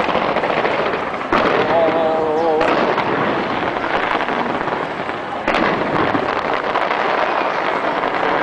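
Large aerial fireworks display crackling and popping continuously, with sudden louder bursts about a second in and again about five and a half seconds in. A brief wavering tone sounds around two seconds in.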